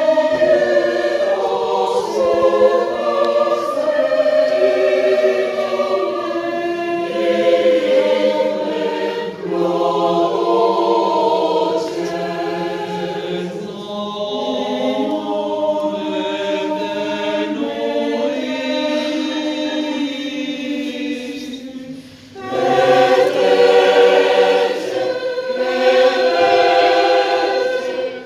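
Mixed choir singing unaccompanied in several parts. About three-quarters of the way through it breaks off briefly, then comes back louder.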